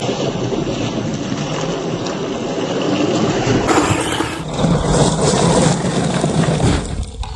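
1/10-scale 4WD radio-controlled car driving over rough ground: steady motor and tyre noise, with abrupt changes about halfway through where the footage cuts between runs.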